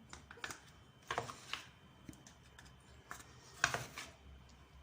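Light, irregular taps and soft scrapes of flour being scooped and packed into a measuring cup, several small knocks spaced unevenly.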